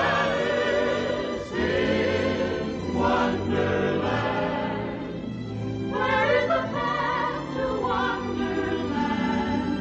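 A choir singing a song with instrumental backing, the voices holding wavering notes in several phrases.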